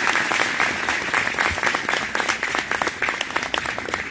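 Audience applauding, many hands clapping at once, thinning slightly toward the end.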